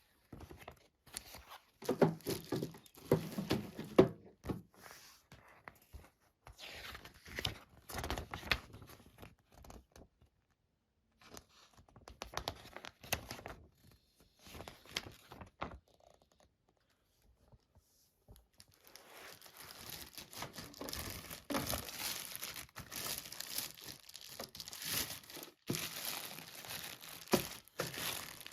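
Plastic packaging crinkling and tearing as it is handled, in irregular bursts with short pauses, then a longer continuous stretch of crinkling in the second half.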